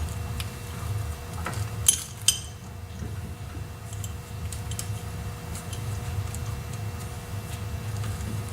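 Light metallic clinks and ticks of a steel C-clamp being set on a rear brake caliper and screwed down to push the caliper piston back, with two sharp clinks about two seconds in. A steady low hum runs underneath.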